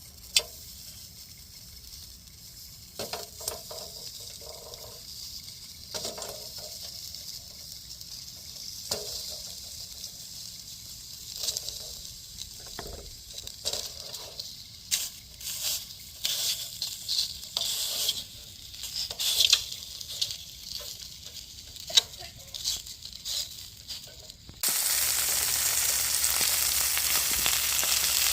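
Food sizzling as it fries in a pan, with scattered clicks and knocks of a utensil stirring it. About three seconds before the end a much louder steady hiss suddenly takes over.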